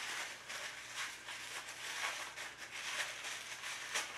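Plastic packaging crinkling and rustling in irregular bursts as it is worked open by hand, with a sharp click near the end.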